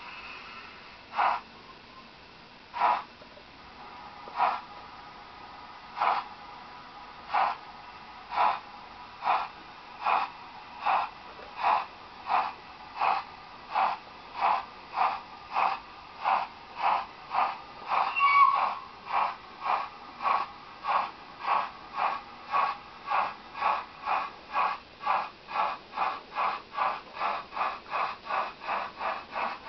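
Sound-decoder exhaust chuffs of a model J27 steam locomotive pulling away with a goods train. The beats start slow, about one every second and a half, and quicken steadily to more than two a second as it gathers speed. A brief higher tone sounds over one beat about two-thirds of the way through.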